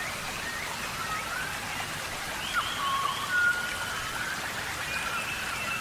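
Steady tropical rain falling in a rainforest, an even hiss of drops, with short whistled calls that rise and fall scattered over it.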